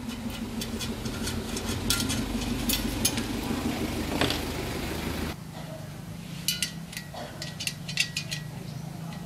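Light metallic clicks and clinks of a hex key working a bolt on a chrome motorcycle muffler, over a steady low machine hum that shifts to a lower, quieter hum about five seconds in.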